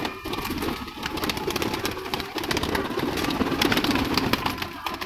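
A flock of domestic pigeons flapping their wings in a loft, a dense clatter of wingbeats as they scatter from a hand reaching in to catch one.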